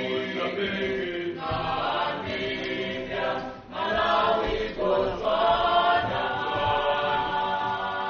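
Choral music: a choir singing in long held phrases.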